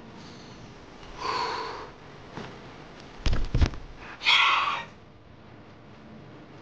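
A crow cawing twice, two harsh calls about three seconds apart, with a quick cluster of sharp knocks between them.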